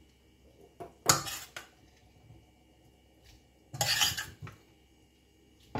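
A utensil clinking and scraping against a stainless steel pot as cooked penne is scooped out. It comes in two short bouts, about a second in and about four seconds in, with a few light taps between.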